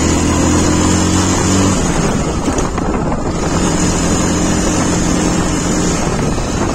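Motorcycle engine running at a steady, even pace while riding, under constant wind buffeting on the microphone. The engine note sinks into the wind for a couple of seconds in the middle, then comes back steady.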